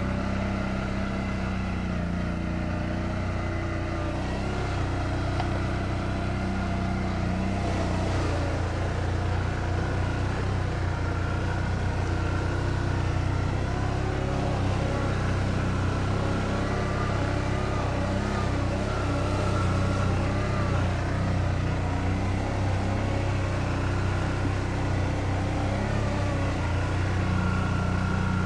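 ATV engine running at fairly steady low revs, its pitch rising and dipping slightly.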